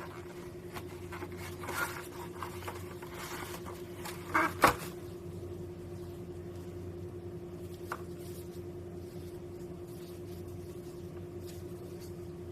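Handling noises over a steady low hum: light rustling and clicks, a sharp knock about four and a half seconds in, and one small click near eight seconds.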